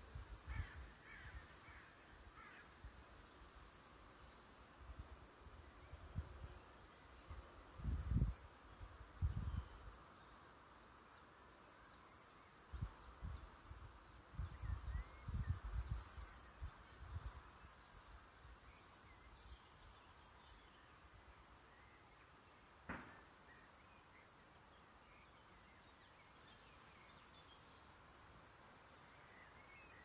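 Faint outdoor ambience: a steady, high, finely pulsing insect trill, with a few faint bird chirps and intermittent low rumbles. There is a single sharp click a little over two-thirds of the way through.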